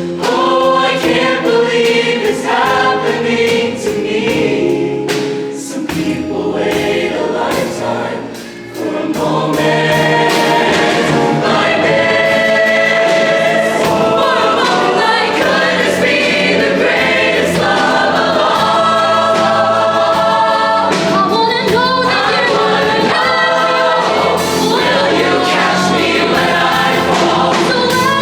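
Show choir singing in harmony over instrumental backing music. The sound thins briefly about eight seconds in, then comes back fuller.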